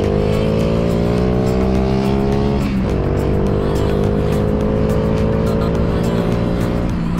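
Honda Monkey's single-cylinder four-stroke engine, bored up to 75cc with a Kitaco kit and breathing through a Takegawa Z muffler, accelerating under way. Its pitch climbs slowly, drops at an upshift about three seconds in, climbs again and shifts once more near the end, over background music.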